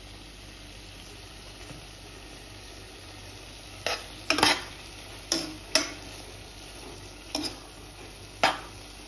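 Prawns in onion-tomato masala sizzling gently in a non-stick pot as the spice powders fry. From about four seconds in, a stainless steel spoon scrapes and stirs through them in six or so separate strokes.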